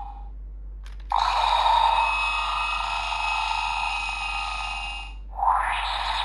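Ultraman Trigger GUTS Sparklence toy playing an electronic sound effect through its small built-in speaker: a short plastic click about a second in, then about four seconds of layered electronic tones that stop, with a new burst of sound starting near the end.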